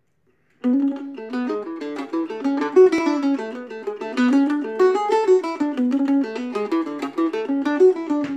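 Weber octave mandolin flatpicked solo, playing an Irish reel as a quick, even run of single plucked notes. The playing starts about half a second in.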